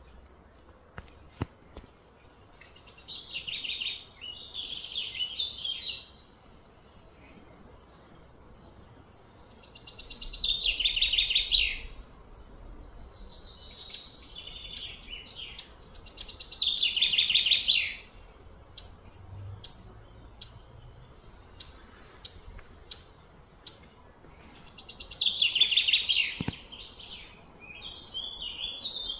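Loud, high chirping calls in four phrases of two to three seconds each, every six to eight seconds. Each swells and then stops abruptly, with faint scattered clicks between.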